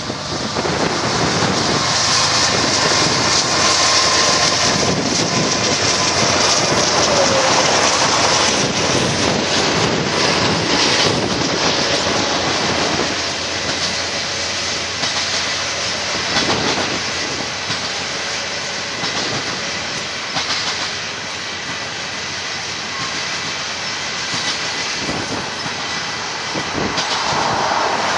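Freight train passing close by. The diesel locomotives go by in the first seconds, then a long string of tank cars rolls past, its steel wheels clicking over the rail joints. The sound is loudest in the first ten seconds or so and eases off slightly after.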